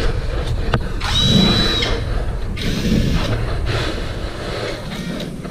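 A small electric motor whining briefly, about a second in, amid a busy mechanical clatter with scattered knocks.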